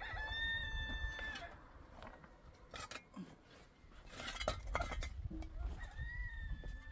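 An animal's high, drawn-out cry, held on one steady pitch for about a second and a half, heard twice: once at the start and again near the end. Between the cries come a few sharp knocks, like dishes clattering.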